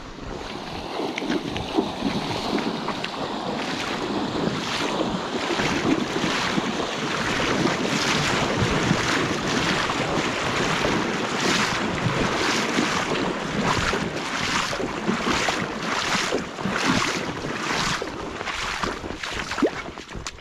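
Boots splashing through a shallow river and wet mud at a steady walking pace, about one and a half steps a second, with wind noise on the microphone.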